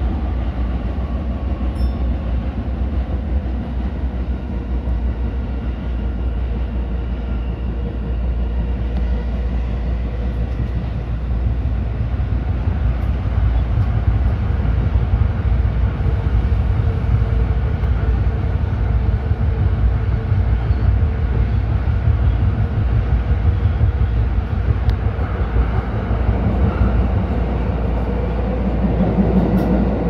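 Tokyo Metro 16000 series subway train running through a tunnel, heard from inside the front cab: a steady low rumble of wheels on rail that grows somewhat louder about halfway through.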